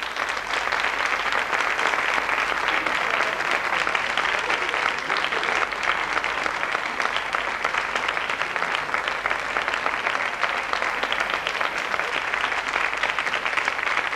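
Studio audience applauding: dense, even clapping at a steady level.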